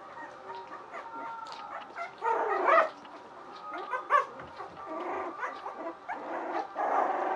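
Young puppies whining and yelping as they tussle: thin high whimpers, with a loud squealing yelp about two and a half seconds in and more cries near the end.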